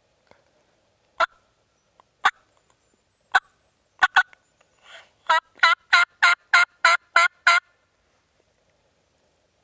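Turkey yelping: a few single sharp yelps spaced about a second apart, then a run of about eight evenly spaced yelps, roughly three a second.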